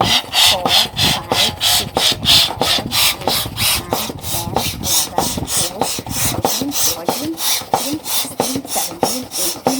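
Manual Bestway Air Hammer hand pump worked quickly, each stroke sending a rasping rush of air into a balloon, about three to four strokes a second in an even rhythm.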